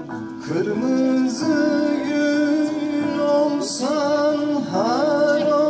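A man singing a Turkish folk song into a microphone, with long held notes that waver and slide between pitches.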